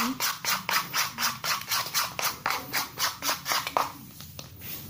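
A spoon scraping round and round a bowl of homemade slime mixture as it is stirred, a steady rhythm of about four strokes a second that stops near the end.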